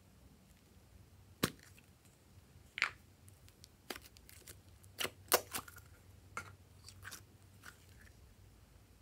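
A series of sharp clicks and pops, about nine of them, the loudest about halfway through, from a plastic slime container being handled and opened and glossy slime being pulled out of it.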